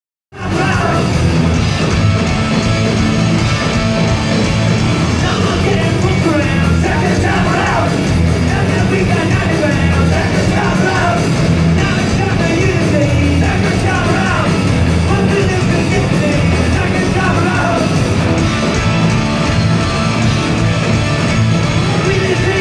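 Punk rock band playing live, loud: electric guitars, bass and drums with a lead singer singing over them. It starts suddenly just after the beginning.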